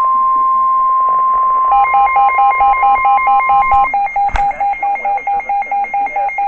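NOAA Weather Radio warning alarm tone, a steady high tone that signals a warning is about to be read. About two seconds in, a rapid two-pitch electronic alarm beeping starts. The steady tone stops about four seconds in and the beeping goes on, with a single click shortly after.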